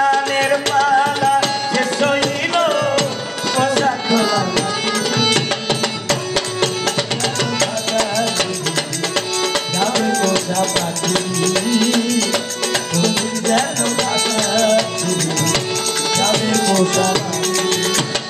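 Bengali folk music played live: a harmonium carrying the melody over hand percussion that keeps a fast, steady beat.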